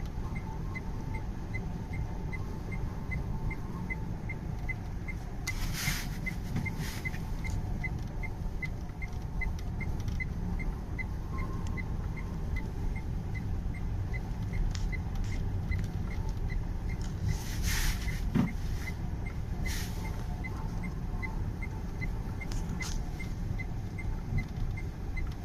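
Steady low rumble of a vehicle driving on a highway in a heavy blizzard, with a regular faint ticking about twice a second. Two louder rushes of noise come through, about a quarter and about three quarters of the way in.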